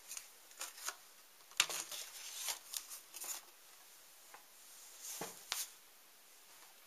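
Soft, scattered rustles and knocks of someone moving and handling things close to the microphone, with two knocks in quick succession about five seconds in.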